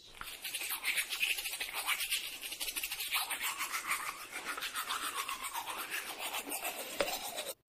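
Teeth being brushed with a toothbrush: quick, continuous back-and-forth scrubbing strokes that stop abruptly near the end.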